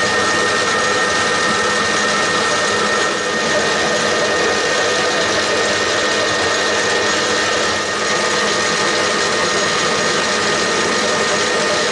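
Metal lathe running with its four-jaw chuck spinning while a steel bar is turned with a carbide insert tool. The machine makes a steady mechanical drone with a constant high whine over it.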